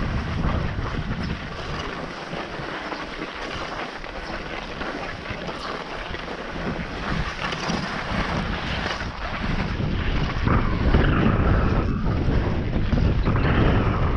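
Wind buffeting the microphone of a ski camera, over the hiss of skis sliding on groomed snow. The wind rumble grows louder about ten seconds in.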